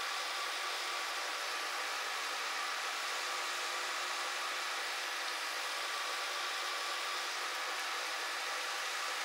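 Monarch metal lathe running under power, its cutting tool taking a light cut of about 25 thou on a small steel part. A steady whir with several fixed tones, unchanged throughout.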